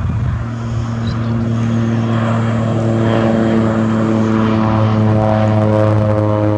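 Propeller engine of a crop-duster plane flying nearby, a steady drone growing louder as it approaches.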